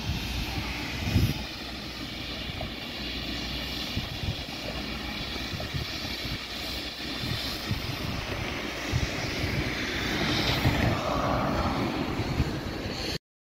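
Tatra T5C5 tram passing close along the street, its wheels running on the rails and its motors humming, louder about ten seconds in as it goes by. A low rumble of wind on the microphone runs underneath.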